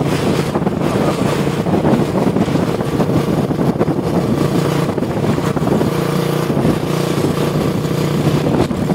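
Heavy truck engine running as the truck drives along the road, with a steady hum that settles to a more even pitch from about six seconds in, over continuous road noise.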